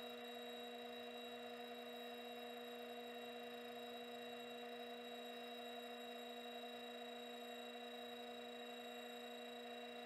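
Faint steady electric hum of a running Jet 1015 wood lathe, made of a few fixed tones with no change in pitch.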